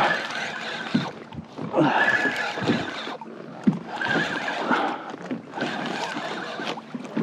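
Offshore fishing reel being cranked in short spells, a whine with each turn of the handle, as line is wound back onto the reel from a fish hooked far off. One sharp knock comes near the middle.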